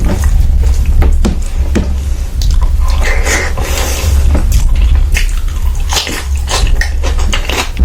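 Close-miked wet chewing and mouth smacking: a rapid, irregular run of sharp sticky clicks over a steady low hum.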